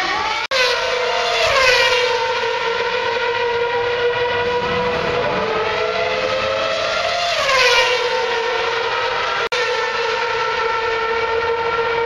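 Formula 1 cars' 2.4-litre V8 engines running with a steady high-pitched engine note. Around a second and a half in, and again near the middle, a car's pitch swoops as it passes. The sound drops out briefly twice, at the start and near the end.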